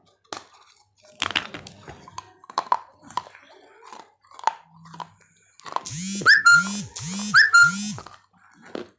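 Teeth biting and crunching baked clay from a matki (earthen pot), a string of short sharp crunches. Near the end comes a louder sound repeated four times about half a second apart, each one rising and falling in pitch.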